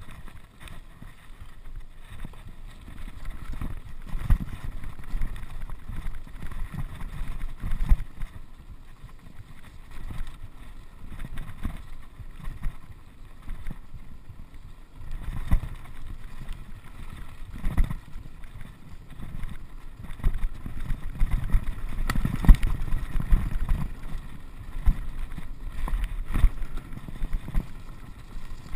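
Mountain bike riding fast over a rough, stony dirt track: a low rumble of tyres and wind on the microphone, broken by frequent knocks and rattles as the bike jolts over stones. The jolting comes in rougher stretches and is heaviest in the second half.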